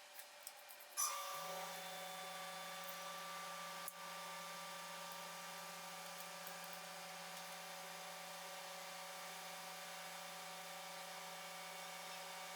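A small electric motor switches on about a second in with a click and runs with a steady, unchanging hum.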